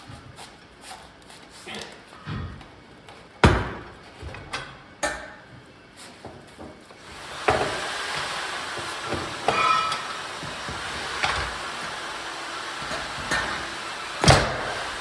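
Several sharp knocks and clanks of work in a garage, a few seconds apart, the loudest near the start and near the end, with a steady hiss running under them from about halfway through.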